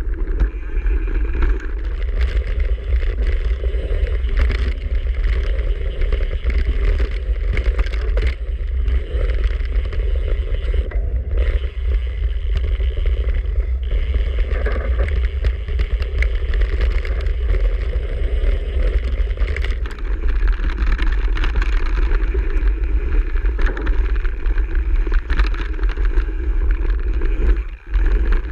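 A mountain bike rolling fast down a rough gravel and dirt forest trail: tyre noise and a constant clatter of knocks and rattles from the bike over the bumps, under heavy wind rumble on the camera's microphone. The sound drops out briefly near the end.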